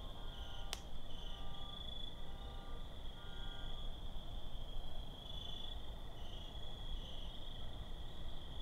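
Night chorus of crickets, a steady high-pitched trilling that wavers slightly, with one sharp click less than a second in.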